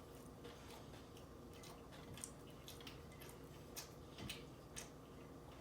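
Faint, irregular wet clicks and smacks of a person chewing a mouthful of double cheeseburger.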